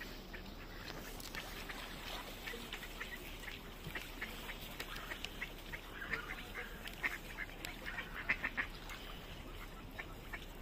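Mallard ducks quacking: many short calls throughout, with a loud, rapid run of quacks about seven to nine seconds in.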